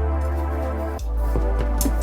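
Background music with a steady bass line and held synth tones.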